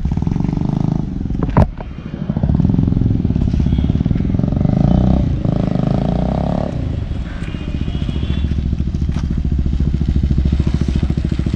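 Bajaj Pulsar 180's single-cylinder engine running through a loud aftermarket M4 exhaust with a fast, even beat. It is revved and held from about two seconds in until past the middle, then drops back to idle. A single sharp crack comes about one and a half seconds in.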